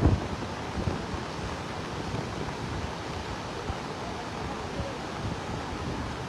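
Swollen, flooding river rushing steadily, with wind buffeting the microphone near the start.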